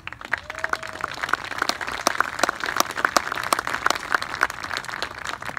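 Audience applauding: scattered hand claps that thicken after a second or so, then thin out near the end.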